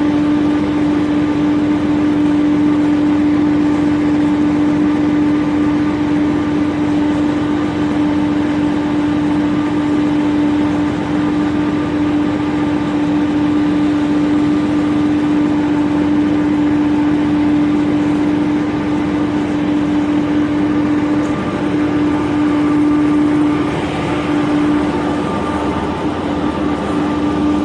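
Engine and machinery of the ship being filmed from, running steadily: a constant drone with a strong, even hum.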